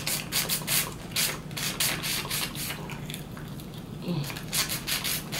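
Wet sucking and slurping at a curry turkey wing bone: a quick, irregular run of juicy smacking mouth noises.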